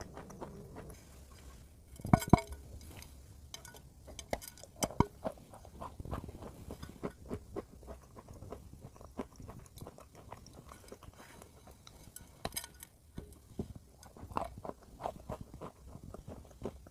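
Close-up eating sounds: a person biting into and chewing a dry, crumbly, powdery block, with repeated crisp crunches and crackles. The loudest crunch comes about two seconds in, with another sharp cluster about two-thirds of the way through.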